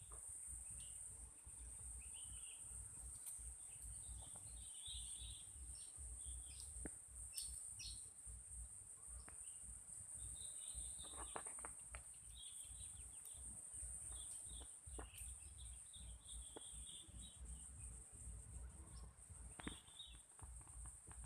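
Birds chirping now and then over a steady high-pitched drone, with a low rumble underneath.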